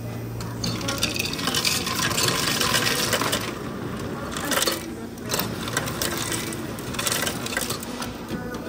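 Ice cubes clattering out of a soda fountain's ice chute into a plastic cup. There are two runs with a short break between them, then a few scattered clicks.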